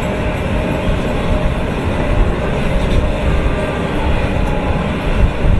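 Steady, loud rumble of heavy machinery, an engine-like noise going with the toy excavator.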